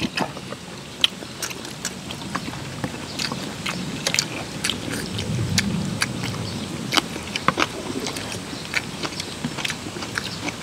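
People chewing and eating curry rice and green onion kimchi close to the microphone, with many short irregular clicks and smacks. A low rumble rises around the middle.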